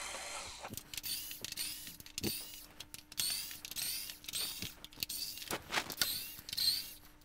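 Hand screwdriver backing screws out of the plastic back cover of a SMART Board 600 Series pen tray: runs of short, high squeaks and clicks, a few a second, as the screws turn in the plastic.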